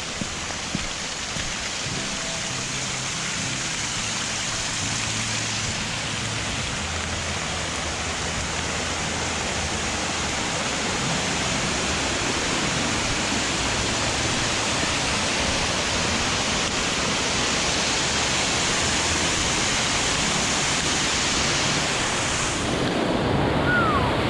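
Steady rushing hiss of rain and running water, growing slowly louder.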